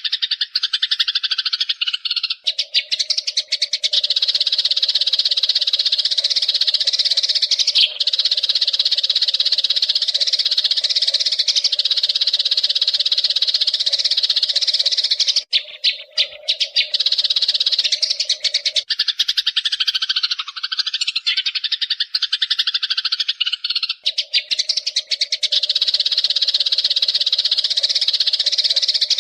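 Eurasian tree sparrows chattering: a dense stream of rapid, high chirps with only brief breaks. A steady low tone runs underneath for most of it and drops out for a few seconds past the middle.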